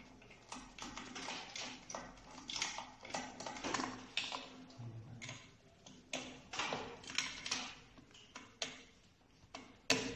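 Hands unscrewing and handling a Lead Fluid YZ35 plastic peristaltic pump head: irregular clicks, taps and short scrapes of plastic and metal parts, with a sharper click near the end.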